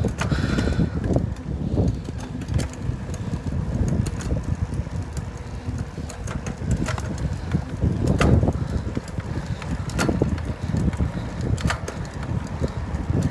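Wind buffeting the microphone of a moving bicycle, a low, gusting rumble mixed with tyre and road noise, with a few sharp clicks, the loudest about eight, ten and twelve seconds in.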